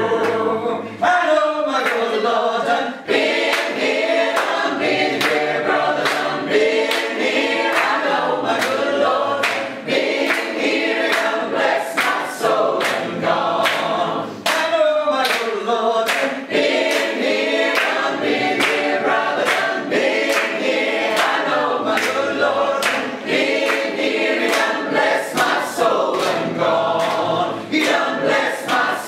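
A choir of mostly women's voices with a few men singing a cappella in parts, steady and full throughout. Sharp handclaps keep a regular beat under the singing.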